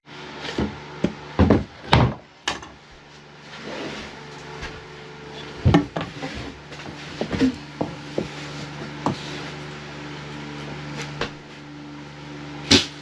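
Scattered knocks and taps from handling and working drywall panels, several in the first few seconds, one about six seconds in and a sharp one near the end, over a steady low hum.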